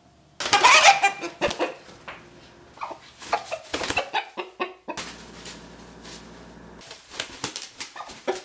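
A chicken beating its wings hard and calling, in a flurry of rapid flaps that starts suddenly about half a second in and breaks off abruptly a few times.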